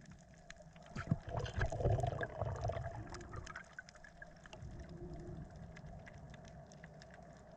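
Underwater sound of a snorkeller on a coral reef: muffled water movement and bubbling, loudest about one to three seconds in, over a steady scatter of faint clicks and crackle.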